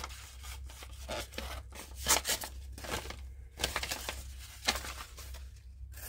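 Small folding pocketknife blade slicing through a sheet of paper in several short strokes, with paper rustling and crinkling between cuts. The blade cuts cleanly, a paper test of its sharpness.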